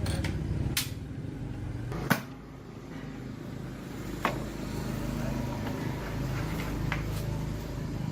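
A few sharp clicks and knocks, the loudest about two seconds in, over a steady low hum.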